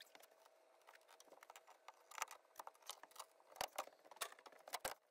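Faint, scattered clicks and light knocks of loose wall-panel parts and debris being handled and set down in a van interior. They come more often in the second half, with a few louder knocks near the end.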